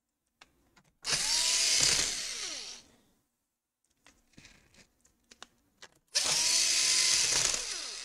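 Cordless power screwdriver driving small screws into a laptop's bottom case in two runs of about two seconds each. Each run is a motor whine that rises, holds steady and then falls away, with small clicks and taps of the bit and screws between the runs.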